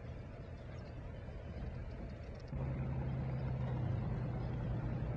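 A boat's engine running steadily with a low hum, stepping suddenly louder about two and a half seconds in.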